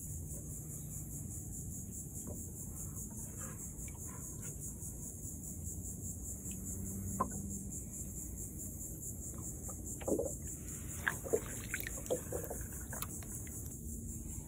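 Wetland ambience: a steady, high, pulsing insect chorus, with a cluster of short clucking animal calls about ten seconds in.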